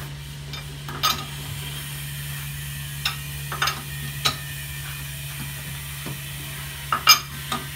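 Irregular metal clinks and taps from a wheel wrench working the lug nuts, about seven in all, the loudest near the end, over a steady low hum.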